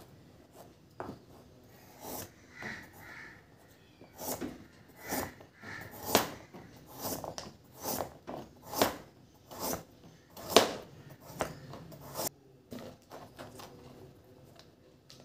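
Chef's knife slicing a carrot into rounds on a plastic cutting board: a series of sharp knocks, about one a second, as each stroke cuts through and hits the board. The knocks stop a few seconds before the end.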